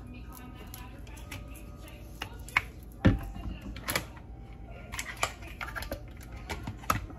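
Irregular clicks, taps and knocks of bottles, caps and a glass blender jar being handled on a kitchen counter, with a heavier thump about three seconds in and the blender lid being pressed into place near the end.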